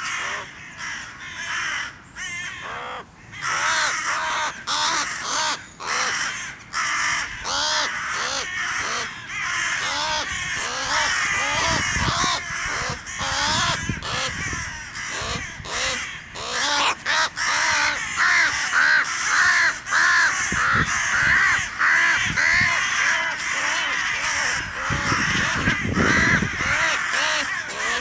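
Crows cawing in alarm, many calls overlapping with hardly a break, becoming denser after about ten seconds, around a northern goshawk attacking a crow. A few low rumbles come in midway and near the end.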